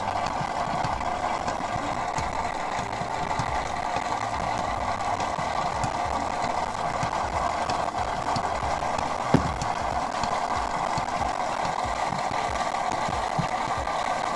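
Oil-change drain pump running steadily as it sucks used engine oil out of a marine diesel's crankcase through a hose, with an uneven low rumble under it. One sharp click about nine seconds in.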